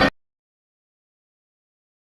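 Dead digital silence, after the preceding audio cuts off abruptly right at the start.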